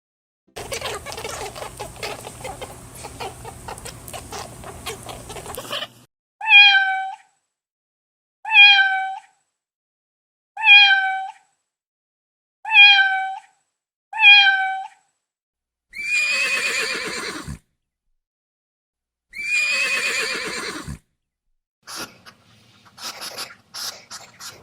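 A string of animal calls: after a few seconds of rough, noisy sound, a cat meows five times, each meow alike and about two seconds apart, followed by two longer, wavering calls and some scattered clicks near the end.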